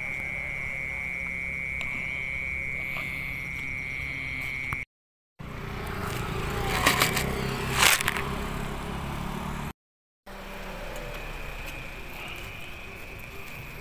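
Steady, high-pitched trill of night insects over a low, steady hum of traffic, broken off twice by short silences. In the middle stretch, a few sharp clatters and knocks stand out.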